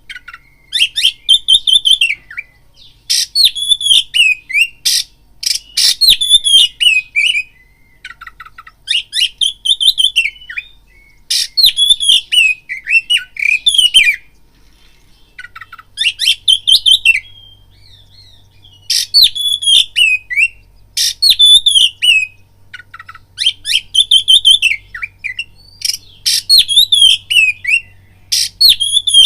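Oriental magpie-robin singing loudly: varied, sweeping whistled phrases of one to three seconds each, repeated again and again with short pauses between them.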